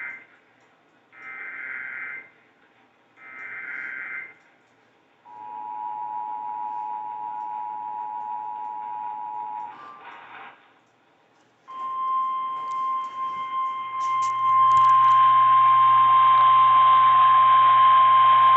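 Emergency Alert System tones received over the radio: the end of one short buzzy SAME digital header burst and two more, then the two-tone EAS attention signal held for about four and a half seconds. After a short gap a single steady NOAA Weather Radio alert tone begins about twelve seconds in, over radio hiss that gets louder a couple of seconds later, and runs on to the end.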